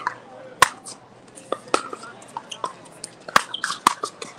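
Pickleball paddles striking plastic balls: a string of sharp, irregular pops of varying loudness, the loudest a little after half a second in and two more around three and a half seconds in.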